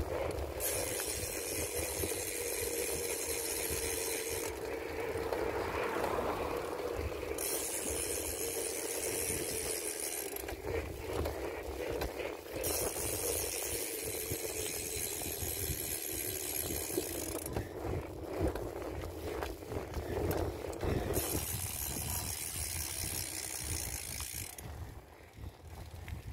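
Bicycle freewheel ticking in four spells of a few seconds each, stopping in between, over steady wind rumble and tyre noise on asphalt.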